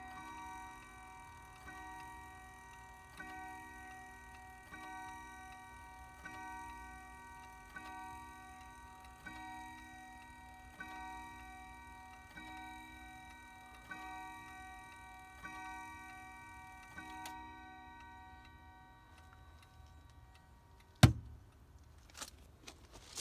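Howard Miller triple-chime wall clock striking the hour: about twelve even hammer blows roughly a second and a half apart, each ringing on in several tones and fading after the last. A single sharp, loud knock follows a few seconds later.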